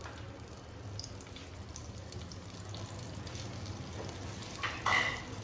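Butter melting and sizzling in hot refined oil in a non-stick kadai, a steady soft frothy hiss over a low hum, with a brief sharper sound near the end.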